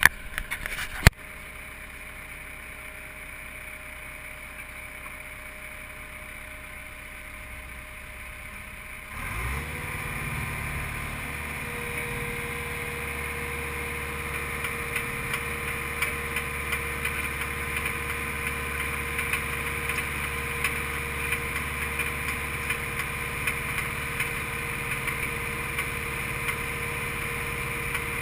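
Skid steer loader's engine running at idle in the cab, with a click about a second in. About nine seconds in it revs up and a steady whine joins as the hydraulic auger attachment spins up and bores a post hole into the ground through cut pavement. It then runs steadily under load.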